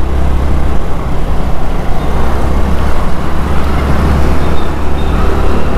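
Loud, steady wind rumble on a motovlogging microphone while riding a scooter, mixed with the scooter's running and road noise.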